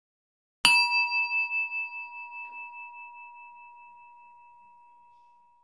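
A singing bowl struck once, about half a second in, ringing with a wavering, pulsing tone that slowly fades away over about five seconds.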